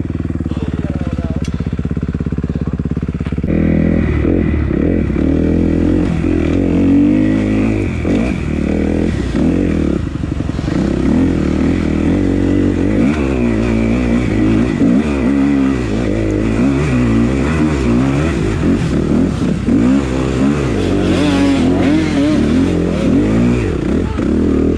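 Enduro dirt bike engine heard from on board the bike, revving up and down continually as it is ridden over rough off-road ground.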